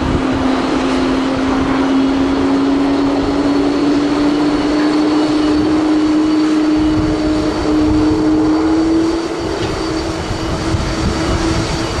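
Airbus A320 jet engines running as the airliner rolls along the runway: a steady hum that slowly rises in pitch and fades near the end, over wind buffeting the microphone.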